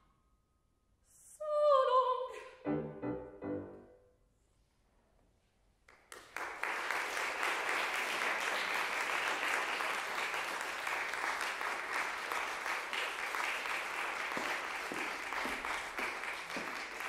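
A soprano's final short phrase, falling in pitch over closing piano chords, ends about four seconds in. After a short silence an audience starts applauding and keeps clapping steadily.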